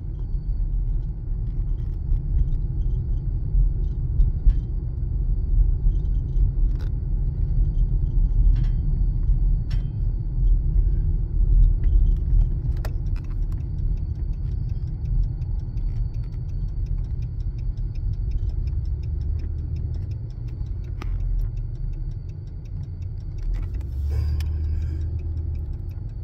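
Steady low rumble of a car heard from inside its cabin, with a few faint, scattered clicks and rattles.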